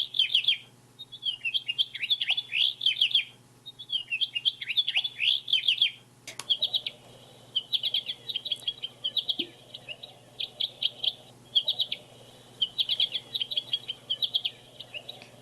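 Recorded birdsong played back from a bird-song book's small speaker: phrases of quick chirping notes repeating every second or two. About six seconds in, a click is followed by a different song, fast runs of short notes.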